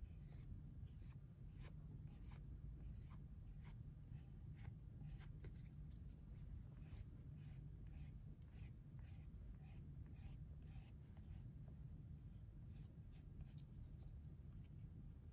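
Faint scratchy strokes of a flexible rib being rubbed over an underglaze transfer on a leather-hard clay cup, about two strokes a second, over a low steady hum.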